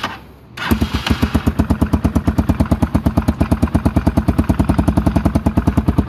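Rusi Sigma 250 motorcycle engine starting with a LeoVince aftermarket muffler, silencer fitted. It catches under a second in and then idles with a rapid, even beat.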